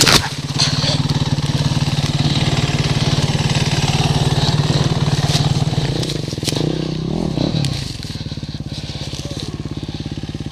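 KTM dirt bike engine idling with steady, even firing pulses, after a sharp knock right at the start; the engine note turns quieter about eight seconds in.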